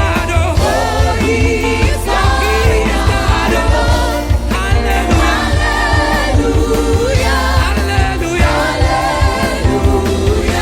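Gospel choir singing a praise-and-worship song with a band, over a heavy bass line and a steady drum beat.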